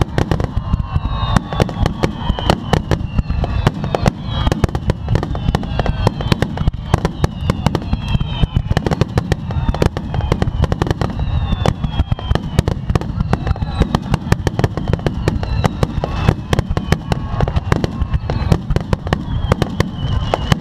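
Fireworks finale barrage: a dense, unbroken run of rapid explosions and crackling bursts, with repeated high whistles falling in pitch over it.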